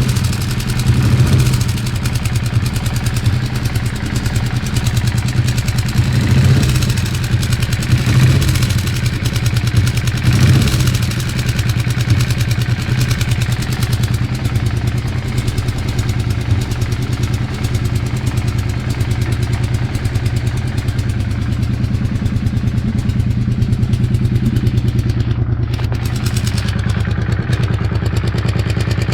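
An engine idling steadily with a rapid, even pulsing, swelling slightly a few times in the first ten seconds or so.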